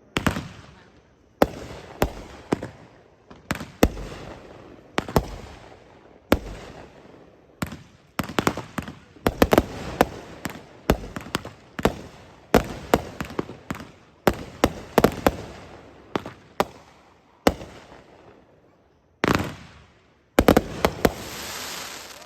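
Two consumer firework cakes, Brothers Wind Chill and Mad Ox Fanatic Firework, firing together: a long run of loud shell bursts at irregular intervals, often in quick clusters, each trailing off in crackle. Near the end come two denser stretches of crackling.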